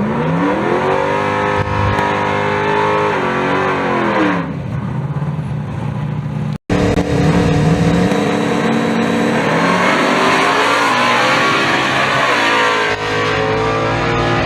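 Drag race car engines at full throttle down the strip, climbing in pitch, holding high, then falling away. The sound breaks off suddenly about six and a half seconds in, and another hard run at high revs follows.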